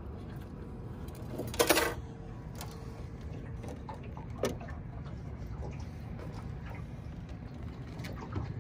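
Rod and reel handling on a trolling boat: small mechanical clicks and knocks, with a short clatter about a second and a half in and a sharper click midway, over the steady low hum of the boat running.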